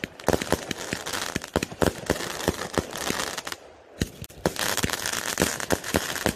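Aerial fireworks going off in dense crackling with many sharp pops, easing off briefly about halfway through before a fresh volley starts.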